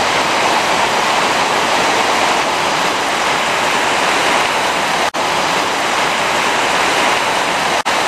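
Steady roar of rushing water from the Kapuzbaşı waterfalls, broken by two split-second dropouts in the audio, about five seconds in and near the end.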